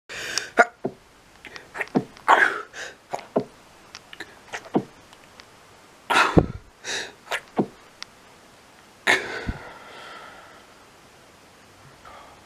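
A person sneezing over and over: a quick string of short sneezes, with two louder ones about six and nine seconds in.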